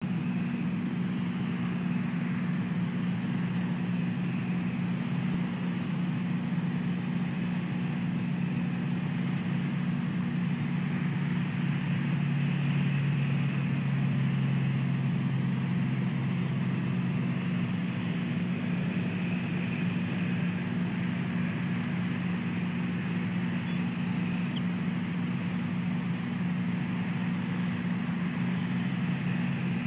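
Steady low hum over an even hiss, swelling slightly for a few seconds near the middle.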